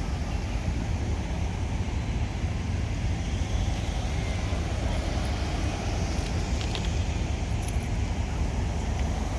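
Wind buffeting the microphone: a steady, low rumbling noise at an even level.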